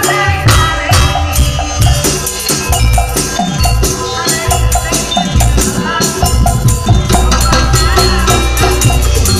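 Loud live stage music with drums and rattling percussion keeping a steady beat.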